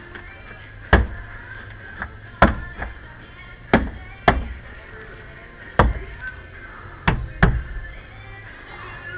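Sharp knocks at irregular intervals, about eight in all, some in quick pairs, over background music.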